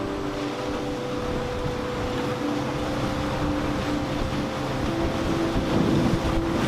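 Boat engines droning steadily over wind and water noise, getting a little louder near the end.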